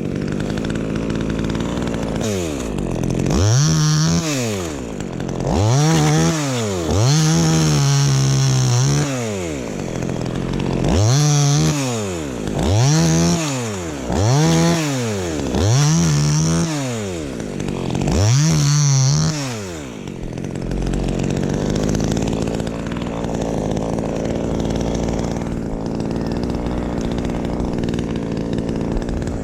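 Chainsaw revving up and falling back about eight times in quick succession, then dropping to a steady idle for the last several seconds.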